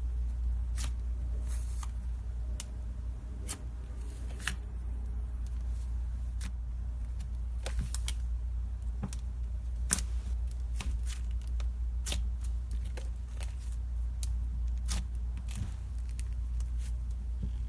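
Slime being worked by hand, giving irregular small pops and clicks, dozens of them spread unevenly, over a steady low hum.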